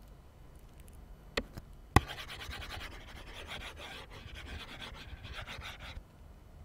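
A click, then a louder click about two seconds in, followed by about four seconds of fast scratchy rubbing back and forth. This is a computer pointing device being scrubbed across the desk to erase an on-screen drawing board.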